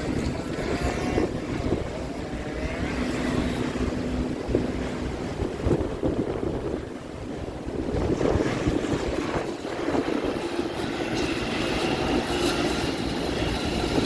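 Gusting wind buffeting the microphone with a heavy, uneven low rumble that rises and falls. A faint steady hum sits under it for a few seconds.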